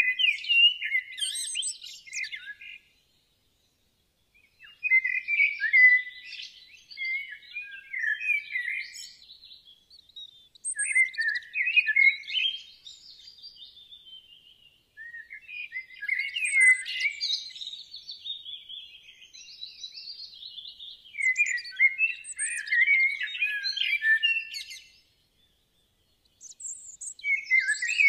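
A songbird singing long runs of quick, high chirps and trills, broken by a couple of short pauses.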